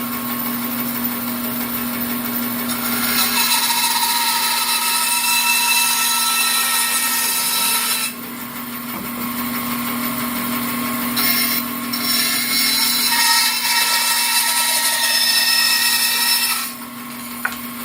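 Power saw cutting through wood over a steady motor hum. There are two long cutting passes: the cut eases off briefly about 8 seconds in and again near the end while the motor keeps running.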